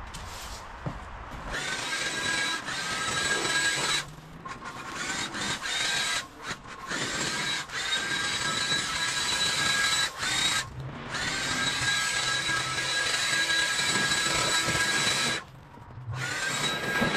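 Stihl leaf blower running, a steady high whine that spins up with a rising pitch each time the trigger is squeezed and drops out in several short gaps.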